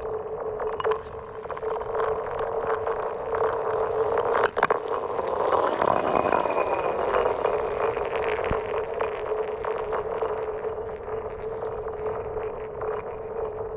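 Chunks of ice skittering and sliding across thin, clear lake ice: many clicks and knocks, with the ice ringing in a chirping tone that glides down and back up near the middle, over a steady humming tone.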